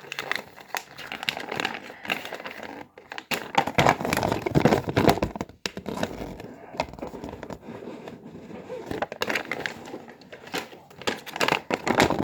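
Toy packaging and paper being handled: crinkling and rustling with many irregular small clicks, loudest about four to five seconds in.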